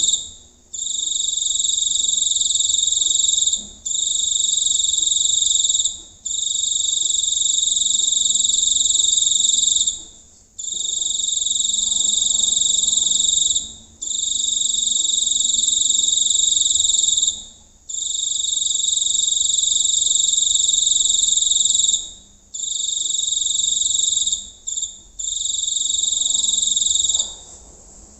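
A giant cricket chirping up close: a loud, high, buzzing trill kept up in long stretches of two to four seconds, each broken by a brief pause, with a few shorter bursts near the end.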